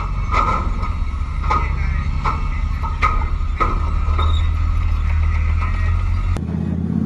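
Flakpanzer Gepard tracked anti-aircraft vehicle driving past on a steel pontoon bridge: a low, steady diesel engine drone with sharp metallic clanks of its tracks on the deck plates, roughly one a second. Near the end the clanking stops and a steadier engine note takes over.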